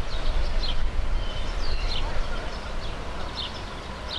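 Songbirds chirping: short high calls, several each second, over a low uneven rumble.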